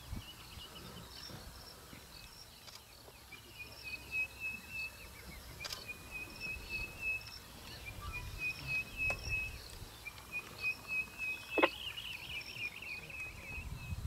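Outdoor bush ambience: a high, rapid trilling call repeats in runs of a second or two, with a few sharp clicks and a low background rumble.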